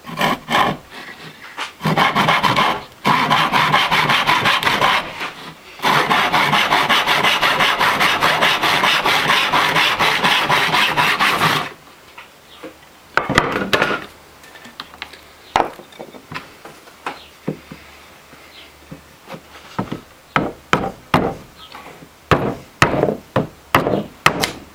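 Wood worked by hand: three runs of fast, even cutting strokes through wood in the first twelve seconds or so, then separate sharp chopping blows on wood that come more often near the end.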